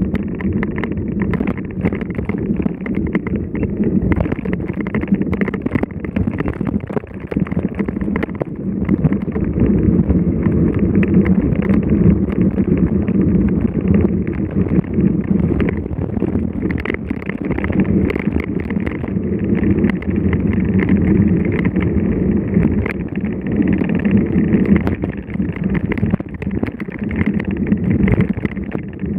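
Steady wind rumble buffeting the microphone of a camera riding along on a mountain bike.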